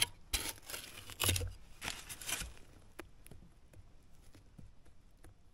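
Digging into soil and tree roots: three scraping, rustling strokes in the first two and a half seconds, then faint crackles and ticks.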